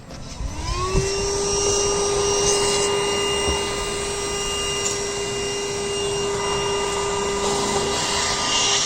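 VacLife VL106 cordless handheld vacuum switched on: its motor spins up with a rising whine over the first second, then runs steadily with a high-pitched whine and air rush.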